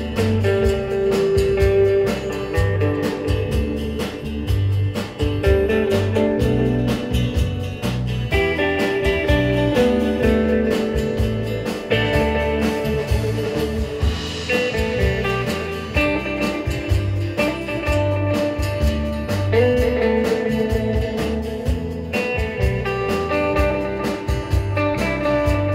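Live rautalanka instrumental: a hollow-body electric guitar plays the lead melody over a drum kit, bass guitar and strummed acoustic guitar.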